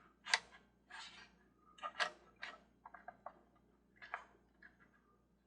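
Irregular light clicks and ticks from the carousel's plastic gearbox and base being handled, several in quick succession near the middle.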